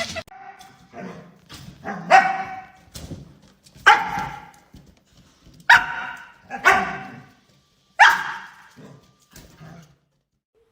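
A dog barking, about five loud barks a second or two apart with fainter yips between them.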